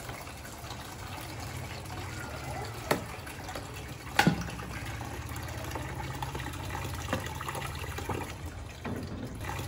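Water running from a tap pipe into a plastic basin, filling it with a steady pouring sound. Two sharp knocks come about three and four seconds in, the second the louder.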